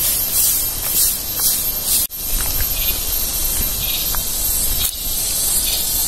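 Forest cicadas chorusing: a high-pitched shrill hiss that pulses about twice a second at first, then runs steadier, with a brief dropout about two seconds in.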